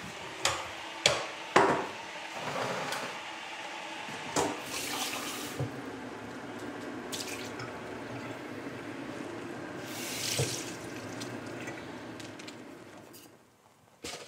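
Water running from a kitchen tap into the sink, steady, after three sharp knocks of handling dishes or utensils near the start; the water fades out near the end.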